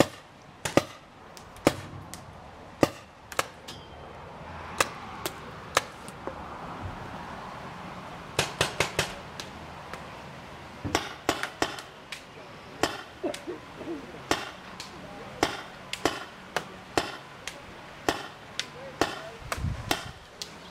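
Paintball markers firing, some as scattered single pops and some as quick strings of about five shots a second.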